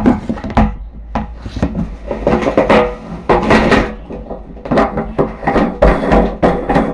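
A threaded nut being fitted and turned onto a water-tank nipple fitting: an irregular run of scraping, rubbing and knocking, with a couple of brief squeaks.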